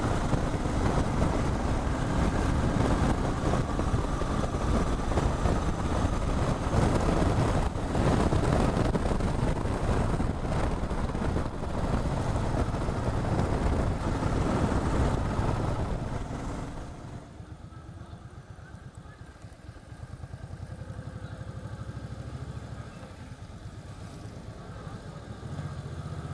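Motorcycle riding at speed, its engine running under heavy wind noise. About two-thirds of the way through the wind dies away and the engine settles to a lower, quieter rumble as the bike slows.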